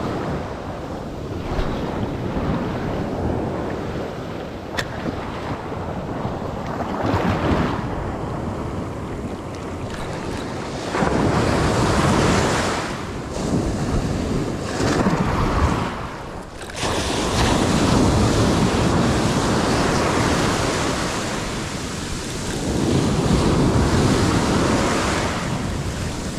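Ocean surf breaking and washing up a sandy beach, rising and falling in swells every few seconds, with wind buffeting the microphone.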